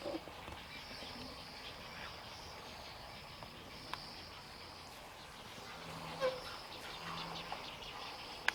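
Outdoor ambience of insects droning in a steady high-pitched band that breaks off and starts again, with a few faint clicks and a short call about six seconds in.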